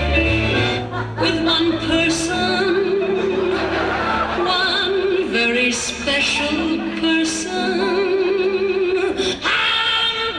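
Duet singing into stage microphones over instrumental accompaniment, the voices holding long notes with vibrato.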